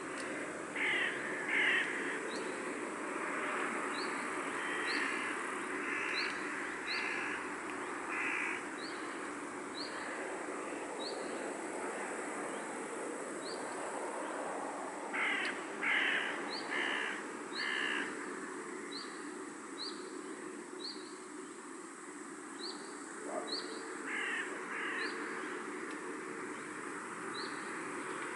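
A crow cawing in short series of two to four harsh calls, coming in several bouts. Under it a small bird gives a quick high chirp over and over, over a steady outdoor background hiss.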